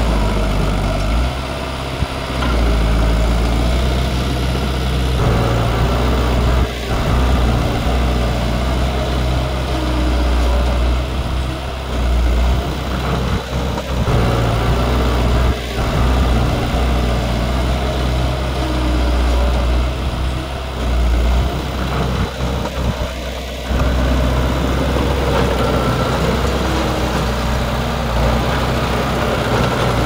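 Heavy diesel engine of earthmoving machinery running continuously, its level rising and falling as the load changes.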